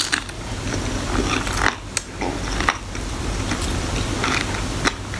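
Close-up chewing of crispy bacon, with short crunchy clicks scattered irregularly throughout.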